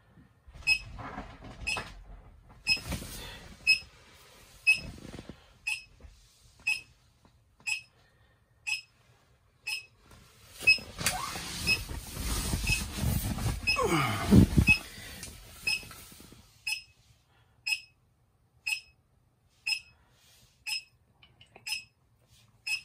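Short electronic beeps at a steady pace of about one a second from the measuring meters. From about eleven to sixteen seconds in, the PVC vinyl of the inflatable rustles and creaks as the person moves, with a falling squeak near the middle of that stretch.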